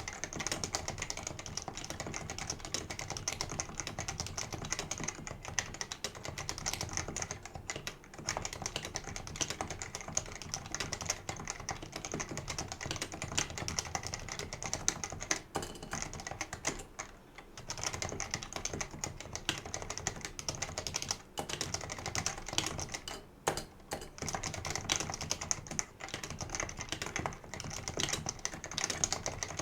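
Steady, fast typing on a Leopold FC660C keyboard with non-lubed Topre switches, a rapid run of keystrokes with a few brief pauses.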